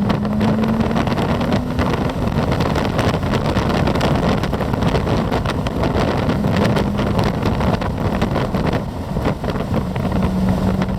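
Heavy wind buffeting the microphone in an open-top Morgan Plus Six at speed. Beneath it a steady engine tone rises slightly in the first two seconds and comes back twice later on.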